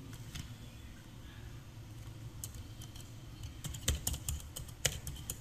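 Computer keyboard keystrokes: a few scattered taps about halfway through, then a quicker run of keys near the end, over a faint low hum.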